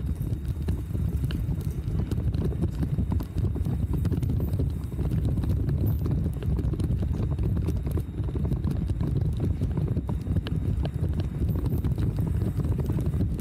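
Bicycle riding over a paved path: steady low rolling rumble with many small rattling clicks.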